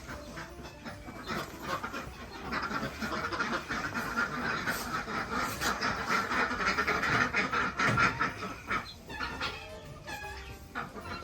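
Ducks quacking and chattering, with a dense run of rapid calls through the middle and scattered calls near the end.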